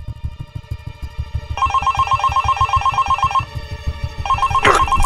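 Mobile phone ringtone: a fast trilling electronic tone that rings for about two seconds, breaks off briefly, then starts again.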